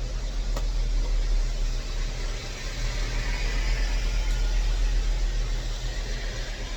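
A machine's motor running with a steady low hum, overlaid by a hissing, grinding noise that swells in the middle and eases toward the end.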